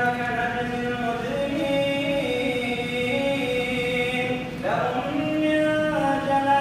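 A man's voice in melodic Quran recitation, holding long drawn-out notes that step up and down in pitch, with a fresh phrase starting about four and a half seconds in. The voice is dry, with no added echo effect.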